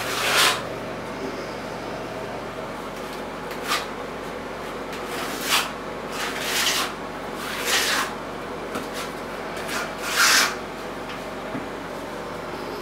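Hands rubbing and pressing fiberglass mesh tape into wet liquid waterproofing membrane: about six short scraping rubs a second or more apart, over a faint steady hum.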